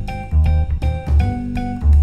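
Background music with a steady beat: plucked notes over a pulsing bass line and drums.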